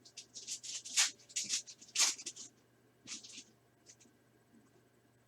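2021 Upper Deck SP Authentic golf trading cards being slid through the hands one after another, with their card stock rubbing together: a quick run of short swishes over the first two and a half seconds, then a few single ones.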